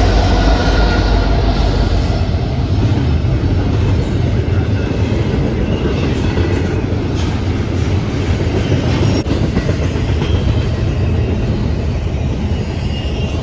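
Freight train rolling past close by: a loud, steady rumble of wheels on rail that eases slightly towards the end.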